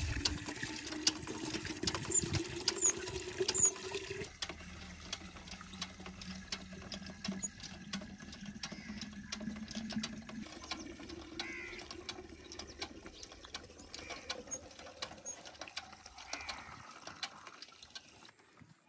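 Hand pump being worked by its lever handle, its mechanism clicking over and over with the strokes, while water runs from the spout into a clay pot. The sound drops away near the end.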